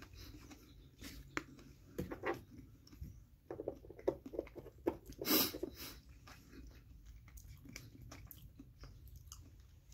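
A man chewing a mouthful of food, with soft wet mouth clicks and smacks clustered between about one and six seconds in, and a short louder breathy rush of noise about five seconds in.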